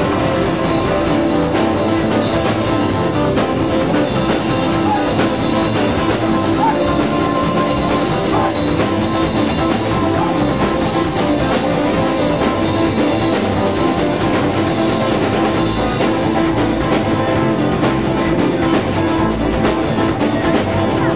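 A live rock band playing steadily, with drum kit and guitar prominent.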